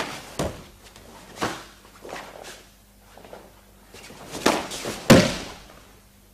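A series of thuds and slaps from bare feet and bodies on a training mat during a karate pairs drill. The heaviest thud comes about five seconds in, as one partner is taken down onto the mat.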